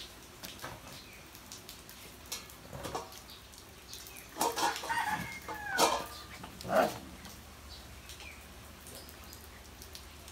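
Husky puppies squabbling over a bone, letting out a quick run of short, high yelps and squeals about halfway through.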